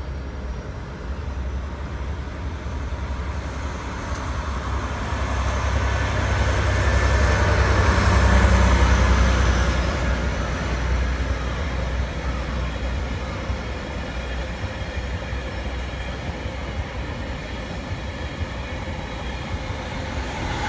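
DE10 diesel-hydraulic locomotive hauling a train of rail cars past: a deep engine rumble with wheel and rail noise that builds to its loudest about eight to nine seconds in, then eases off as the cars roll by.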